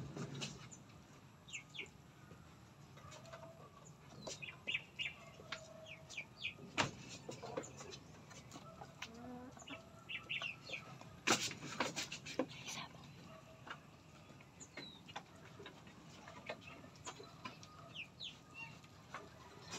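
Chickens clucking in a farmyard, with short calls scattered throughout. A few sharp knocks cut through, the loudest about eleven seconds in.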